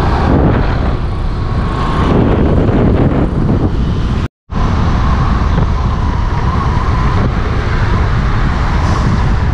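Road traffic noise with heavy wind rumble on the microphone while moving along a street. The sound cuts out for an instant a little over four seconds in.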